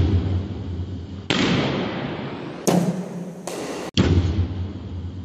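Cricket ball impacts in an indoor net hall, from a bowling machine firing deliveries and balls striking bat, netting and floor. There are several sudden thuds, each with a long echoing tail.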